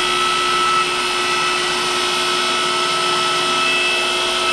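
Electric hydraulic pump of a 20-ton press, driven by a one-horsepower electric motor, running steadily with an even whine as it drives the ram.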